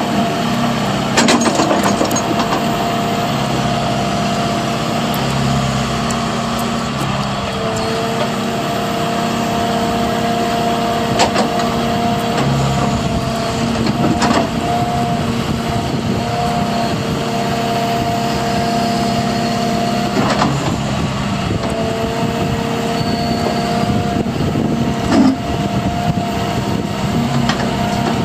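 John Deere 160 excavator's diesel engine running steadily, with a whine that comes and goes every few seconds and a few short knocks.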